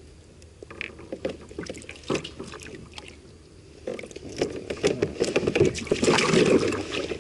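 Handling noise from working a hook loose from a catfish in a rubber-mesh landing net on a kayak: scattered clicks and rustles, growing into a busy run of clicks, knocks and scraping from about four seconds in.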